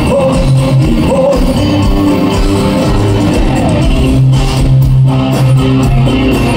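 Live rock band playing loud: electric guitars strumming over a drum kit.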